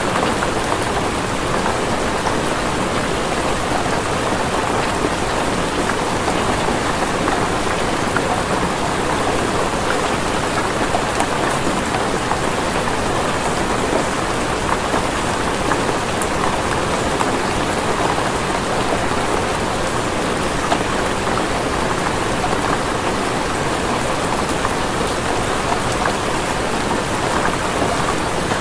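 Rain falling steadily, an even dense patter with scattered individual drop ticks.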